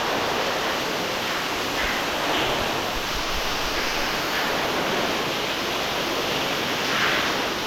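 Cave waterfall: steady rushing of falling water.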